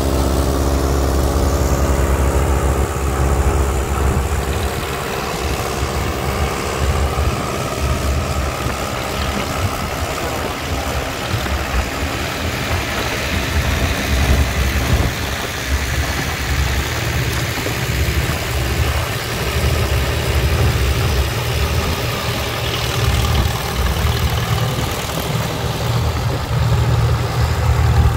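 Antique farm tractor engine running loud and continuously. It is steady and even at first and again near the end, and rougher and less even through the middle.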